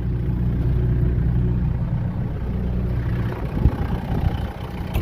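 Farm tractor engine idling steadily. About three and a half seconds in the steady engine note ends, and a few short knocks follow.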